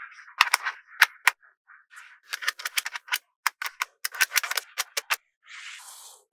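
Small magnetic balls clicking and clacking against each other, in single snaps and quick rattling clusters, with a brief rushing hiss near the end.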